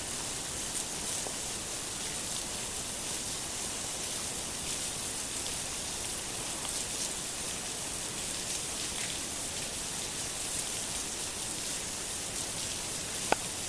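Steady rain falling, an even hiss with faint scattered drop ticks, and one sharp click near the end.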